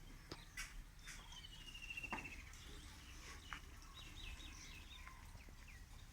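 Small birds chirping faintly: a short high trill about a second in, then a quick run of high chirps near the middle, with a few light clicks.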